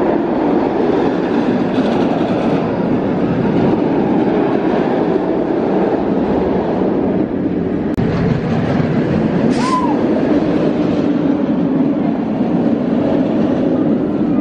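Kumba, a Bolliger & Mabillard steel roller coaster, with its train running along the track: a loud, steady rumble, plus one short high squeal about ten seconds in.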